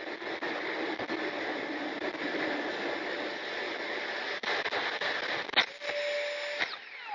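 Steady rushing air and motor noise on the onboard camera of a radio-controlled model jet in flight, ending in a sharp impact about five and a half seconds in as the jet crashes. A short steady tone follows for about a second and cuts off with a click.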